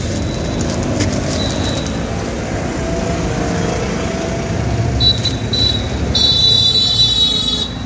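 Steady street traffic rumble, with two short high-pitched toots about five seconds in and a longer, louder toot near the end.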